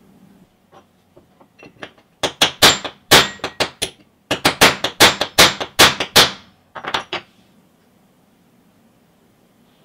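Hammer blows on a pipe cutter's rust-seized slider bar to knock it free: a few light taps, then two runs of hard, quick metallic strikes about four a second, and two last blows.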